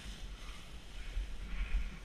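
Snowboard sliding over snow, a steady hiss, with wind buffeting the helmet camera's microphone as a low rumble.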